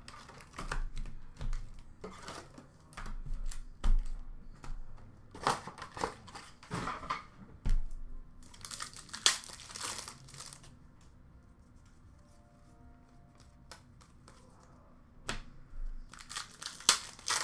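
Hockey card packs being torn open by hand, their wrappers crinkling and tearing in irregular bursts of crackle, with a quieter stretch of lighter rustling in the middle.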